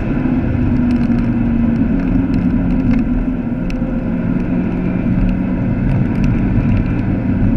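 Vauxhall Astra VXR's turbocharged four-cylinder engine running steadily under load, heard from inside the cabin over tyre and road noise. A few faint ticks sound through it.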